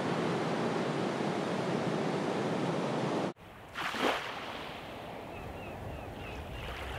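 Sea surf washing on the shore with wind, a steady rush that cuts off suddenly about three seconds in. It is followed by a short whoosh and a quieter hiss with a few faint chirps.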